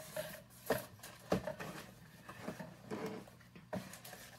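Cardboard box and its packaging being handled and set down: several soft knocks among light rustling.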